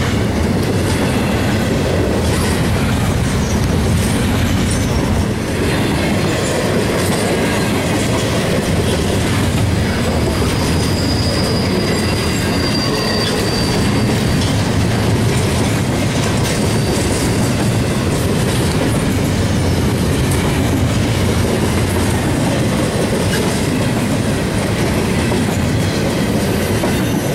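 Double-stack intermodal freight train's container cars rolling past close by, a loud, steady rumble of wheels on rail. A thin, high wheel squeal rises out of it for a few seconds about ten seconds in.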